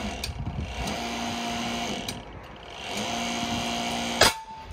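The hydraulic pump of a 50-ton shop press runs in three spells with short pauses as pressure builds. About four seconds in there is a loud sharp bang with a short metallic ring, as a Triumph TR6 differential flange breaks free on its taper.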